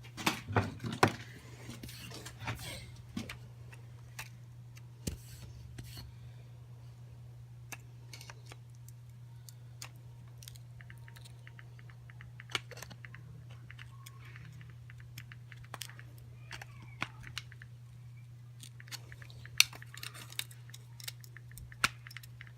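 Scattered clicks and light knocks of hose, clamps and hand tools being handled while a rubber fuel hose is worked onto an electric fuel pump's outlet. A steady low hum runs underneath.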